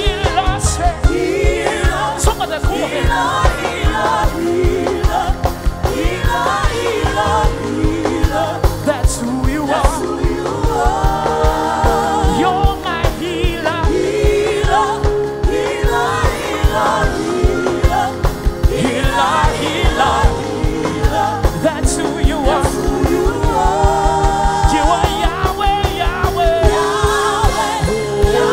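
Gospel worship music performed live: voices singing over a band with a steady beat.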